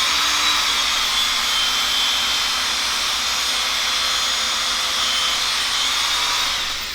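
Steady whooshing hiss of a motor-driven blower, even throughout, cutting in and out abruptly.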